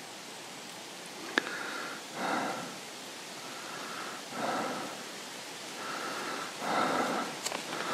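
A person breathing heavily close to the microphone, about one breath every two seconds, over a steady hiss, with a sharp click about a second and a half in and another near the end.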